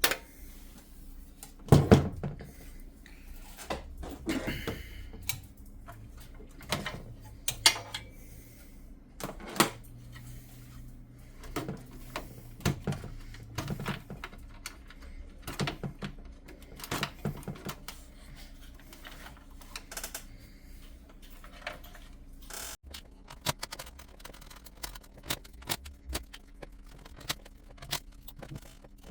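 Irregular clicks, taps and knocks of computer parts being handled and set down, the loudest about two seconds in, over a faint steady low hum.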